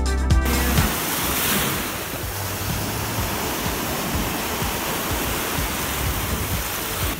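Small ocean waves breaking and washing up the shore, a steady rushing hiss of surf. Upbeat dance music cuts off in the first second.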